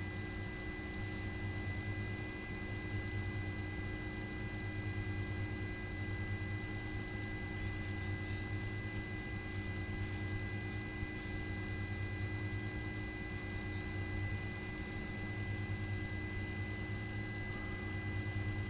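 Helicopter cabin noise: a steady low engine-and-rotor hum with several constant high whining tones, unchanging throughout.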